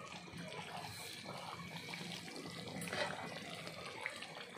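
Chicken pieces sizzling in oil in a steel cooking pot, a steady soft hiss.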